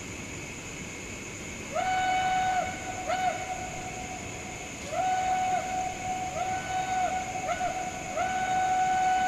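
Reading-style 'hooter' steam locomotive whistle blown in six blasts of mixed length, short toots and longer ones. Each blast slides up into one steady tone and sags at release. The last long blast is still sounding at the end.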